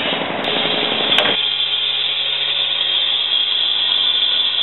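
Stihl two-stroke cut-off saw held at full speed, its disc cutting through torn metal railing with a steady high whine over the engine's even drone. It comes in about a second in, after a short stretch of mixed noise.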